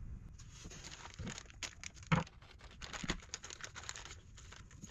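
Small plastic parts bags crinkling as they are handled, with scattered light clicks of small metal differential parts on the bench and one louder knock about two seconds in.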